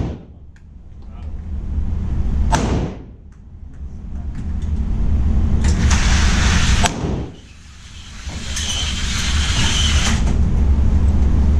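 Two pistol shots at a shooting range, one a few seconds in and one about seven seconds in, each a sharp crack after which the recording's level drops and slowly recovers, over a steady low rumble.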